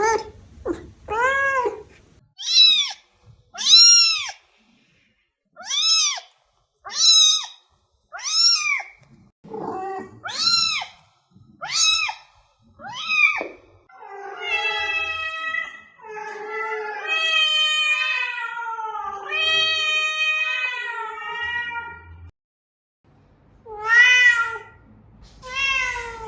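Domestic cat meowing: about a dozen short meows that rise and fall in pitch, then longer, drawn-out wavering meows, then two more short meows near the end.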